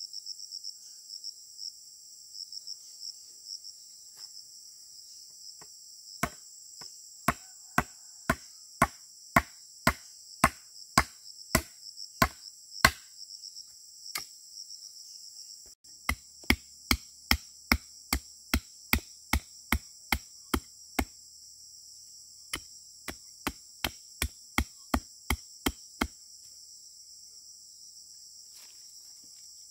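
Insects chirring steadily, with three runs of sharp knocks from a tool striking at about two a second, each run lasting several seconds; the knocks are the loudest sound.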